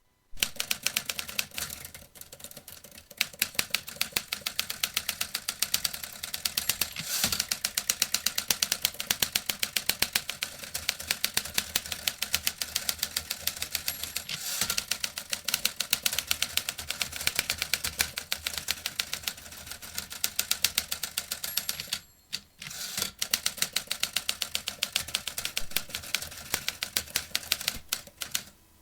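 Vintage manual typewriter being typed on quickly: a dense run of key strikes, many a second, that stops for about a second three-quarters of the way through and then resumes.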